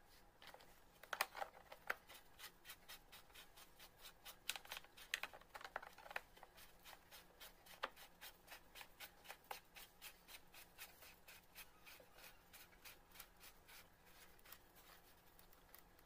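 Plastic clicks and knocks as the side cover is fitted over the chain sprocket of an iBell electric chainsaw. Then comes a regular run of clicks, about three a second, as the red tensioning knob is turned down tight.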